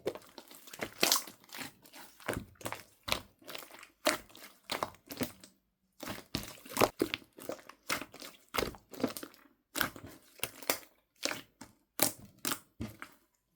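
Slime being pressed and stretched by hand, giving short crackling pops and clicks, one or two a second, with a short pause midway.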